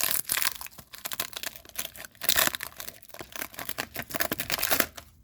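A trading card pack wrapper crinkling and tearing as it is opened by hand, in dense irregular crackles with louder bursts near the start, about two seconds in and near the end.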